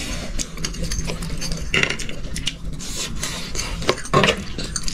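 Cutlery clinking and scraping on plates during eating, with irregular small clicks and two louder scrapes, about two seconds in and near the end.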